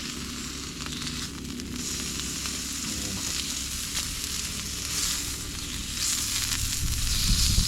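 Meat sizzling in an oiled frying pan, a steady hiss that grows louder in the second half.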